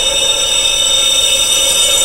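Wind chimes tuned for tinnitus sound therapy, ringing in a dense, steady wash of many overlapping high tones with no single strike standing out.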